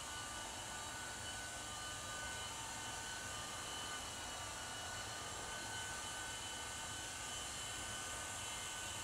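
Small electric radio-controlled helicopter (Honeybee V2) hovering: a steady, thin whine from its motor and rotor, with a few held tones that drift slightly in pitch over a faint hiss.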